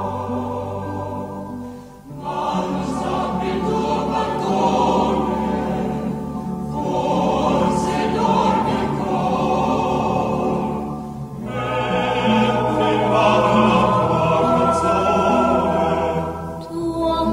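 Background choral music: many voices singing long held notes in slow phrases, with a brief dip between phrases every four to five seconds.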